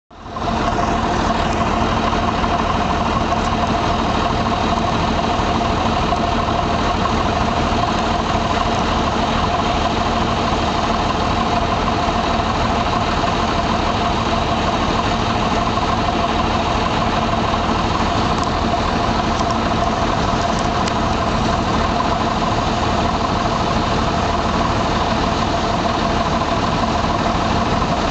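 Combine harvester running steadily in the corn, a constant heavy machine drone with steady tones that does not rise or fall; it fades in within the first half second.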